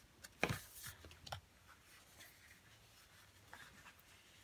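Paper sticker pads handled on a tabletop: a sharp paper slap or rustle about half a second in, two lighter rustles just after, then only faint paper ticks as the sheets are shuffled.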